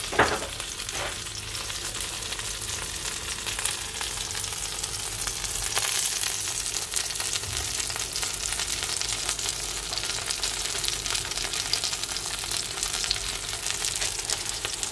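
Burger patty topped with kaşar cheese and julienned sausage, with the buns alongside, sizzling and crackling steadily in a little oil in a nonstick frying pan while the cheese melts. A brief louder noise comes right at the start.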